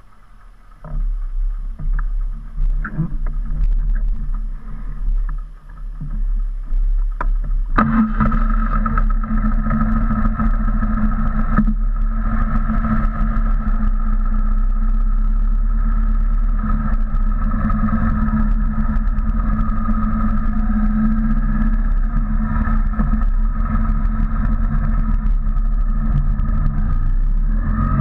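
BMW R1200C's boxer-twin engine comes in abruptly about eight seconds in and runs steadily at idle. Before that, uneven gusty noise with a few sharp knocks.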